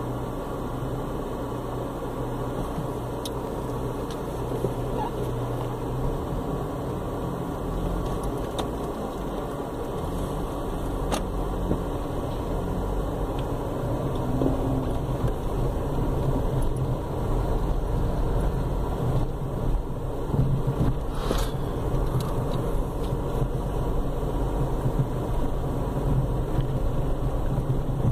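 Car engine and tyre noise heard from inside the cabin while driving slowly through town streets, a steady low rumble that grows a little louder about halfway through.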